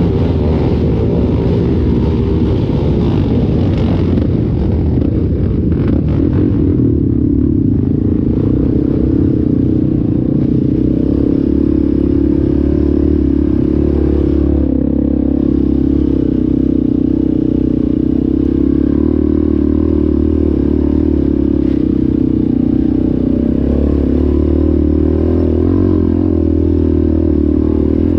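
ATV engine running steadily under way, at a fairly even pitch.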